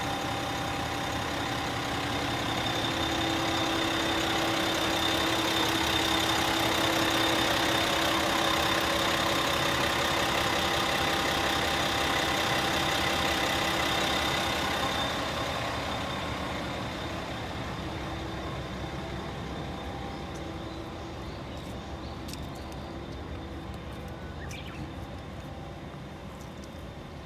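Diesel engine of Isumi Railway railcar 352 idling, a steady hum with a high whine over it; it swells in the first half, then fades away over the second half.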